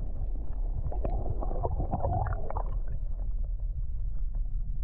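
Creek current heard through a camera held underwater: a steady low rumble with gurgling and small scattered clicks, growing busier for a moment between about one and two and a half seconds in.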